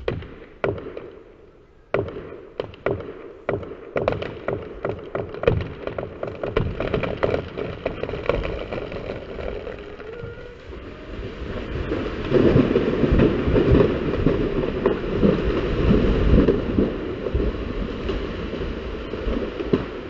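An axe-cut tree's trunk cracking in a quickening series of sharp snaps as the last fibres of the hinge give way, then a long crash of the tree coming down through branches and hitting the ground, loudest about twelve to seventeen seconds in.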